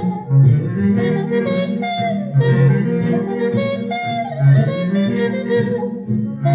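Small swing-era jazz band playing an instrumental passage: horns over piano, string bass and drums, with a steady beat.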